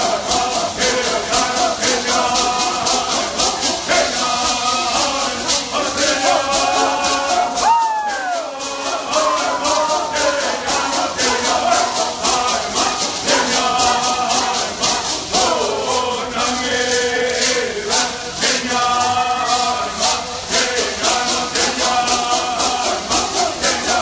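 Voices singing a traditional bird song together, chanting on held notes over hand rattles shaken in a steady, driving rhythm. Twice the voices slide down in a long falling glide.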